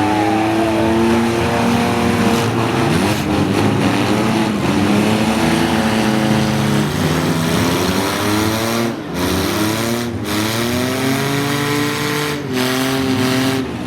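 Several demolition derby vehicles' engines revving at once, their pitches rising and falling against each other.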